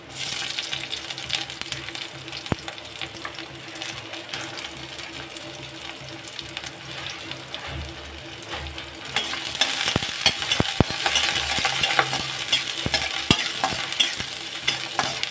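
Chopped onion and green chillies frying in hot oil in a kadai, sizzling and crackling. The frying gets louder about nine seconds in, with a few sharp clicks soon after.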